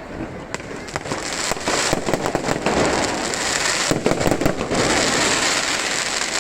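Fireworks display: a string of sharp bangs and crackles over a continuous crackling hiss, densest in a rapid cluster about four seconds in.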